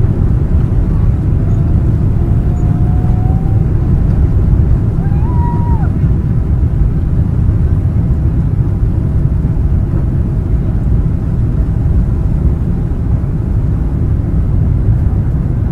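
Cabin noise of an Emirates Boeing 777-300ER at takeoff power: a steady deep rumble of its GE90 engines and airflow as the jet leaves the runway and climbs.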